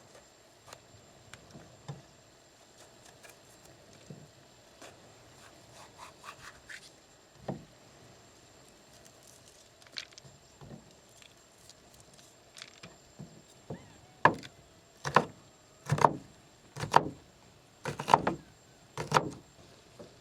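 Scattered light clicks and knocks, then a run of six loud sharp knocks about once a second near the end.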